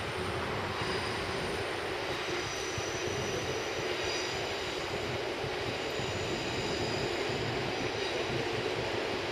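Odakyu Odawara Line electric train running past on the tracks: a steady rumble and rush, with a faint thin high squeal from the wheels through the middle of the passage.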